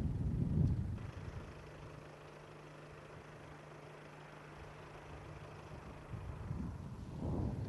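Roadside outdoor sound: low wind rumble on the microphone for the first second, then a quieter stretch with a steady low hum, and a vehicle passing, swelling to its loudest just before the end.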